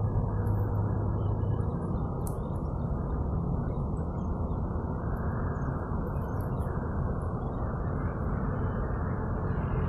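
Steady low rumbling outdoor background noise, with a few faint high chirps over it.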